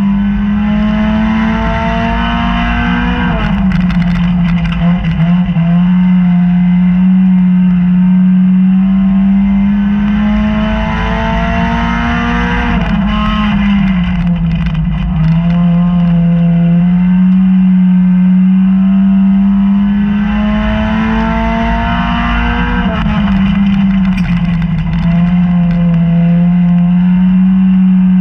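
Dirt-track race car engine heard from inside the cockpit at racing speed. Its pitch climbs steadily along each straight and drops sharply into each turn, three laps' worth, with bursts of rattling clatter through the car in the corners.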